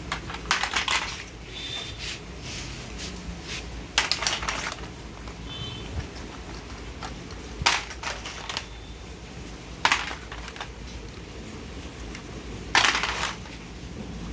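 Plastic toy gun being fired or worked in short rattling bursts of rapid clicks, five times, each under a second long, with a couple of faint brief high tones between them.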